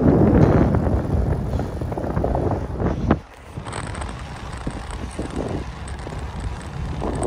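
Wind buffeting the microphone: an uneven low rumble that drops away sharply about three seconds in, then builds again.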